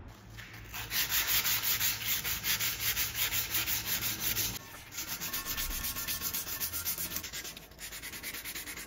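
Sandpaper rubbed by hand in quick, even back-and-forth strokes, several a second, along a forged leaf-spring steel knife blade. The strokes pause briefly about halfway, then go on a little softer.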